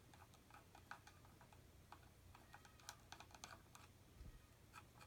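Faint, irregular small clicks and ticks of a flathead screwdriver turning out the single screw on the underside of a Marlin Model 15YN rifle's wooden stock.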